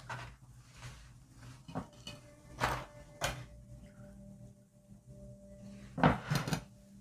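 Kitchen dishes and utensils knocking and clinking, several separate knocks with a faint ring after some, the loudest a quick pair near the end.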